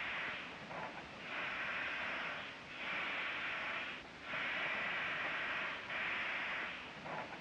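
Steam hissing in repeated bursts, each about a second to a second and a half long with short breaks between, as the locomotive boiler builds pressure.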